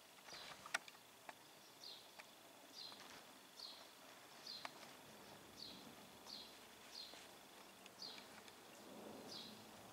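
Faint high chirps, each a quick falling note, repeated steadily roughly once a second, from a small animal or bird. A few light clicks, one sharp click about a second in, and a faint thin steady high tone.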